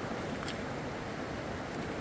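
Steady rushing noise of moving river water, with a faint click about half a second in.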